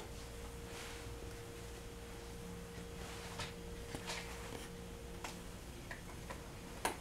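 Cat eating at its food bowl: a few scattered sharp clicks and taps, the loudest near the end.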